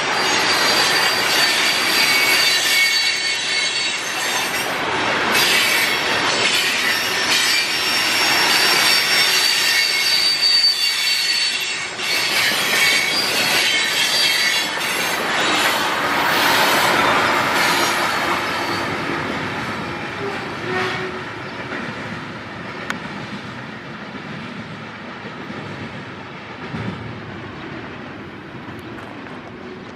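A train rolling past on steel rails, its wheels squealing with steady high-pitched tones and clicking over the rail joints. The sound fades gradually over the last third as the train moves away.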